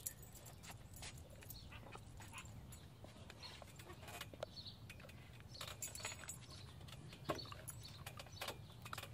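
A dog moving close by: faint scattered clicks and rustles over a low steady hum.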